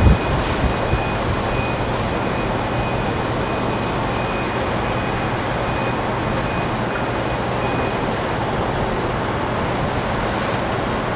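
Steady rushing din of an airport apron, with a low hum underneath and a faint high beep repeating evenly for the first eight seconds or so. A gust of wind bumps the microphone right at the start.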